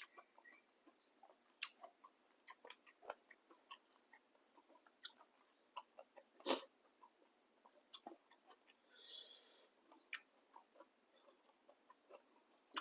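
Quiet eating sounds of a person eating a bowl of boat noodles: scattered small clicks and chewing, with a sharper knock a little past six seconds and a short hiss about nine seconds in.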